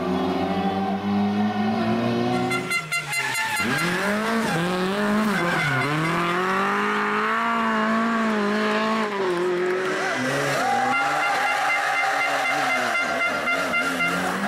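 Rally car engines revving hard, their pitch climbing and dropping through gear changes and corners, with abrupt changes where one car gives way to another about three and ten seconds in. Some tyre squeal is mixed in.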